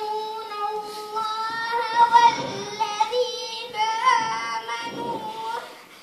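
A young girl's voice singing slow, long held notes, a single unaccompanied voice; it stops shortly before the end.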